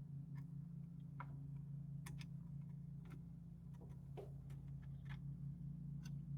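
Scattered light clicks and taps, like small plastic and metal computer parts being handled, over a steady low hum.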